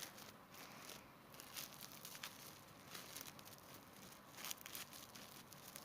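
Faint crinkling and rustling of plastic cling film as it is pulled off, stretched and wrapped, in soft irregular bursts.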